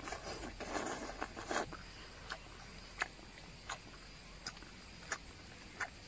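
A person eating roasted snail meat: wet, noisy mouth sounds for the first second and a half, then six short, sharp chewing smacks, about one every two-thirds of a second.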